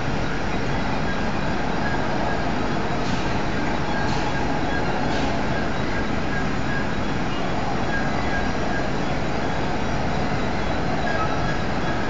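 Blast furnace running with a loud, steady rushing noise, with a few faint ticks about three to five seconds in.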